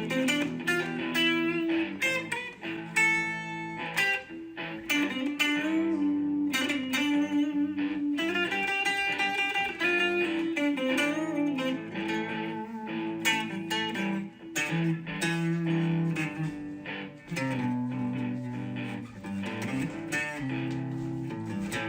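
Background music: plucked guitar playing a melody over held bass notes.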